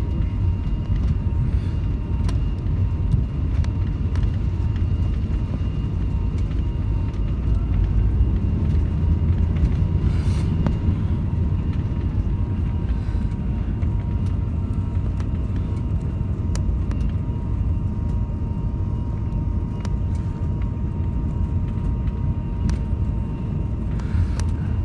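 Cabin noise of a Li-2 airliner rolling down the runway after landing: a steady low rumble from its two Shvetsov ASh-62IR radial engines and the undercarriage, with a faint steady whine above it.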